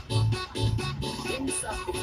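Music with a steady bass beat.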